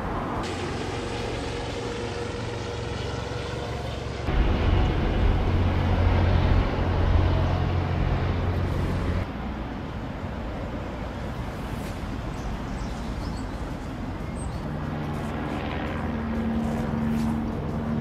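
Outdoor ambience of motor vehicle engines running. The sound changes abruptly twice: a louder, deeper engine hum lasts about five seconds from about four seconds in, and a steadier engine drone comes in near the end.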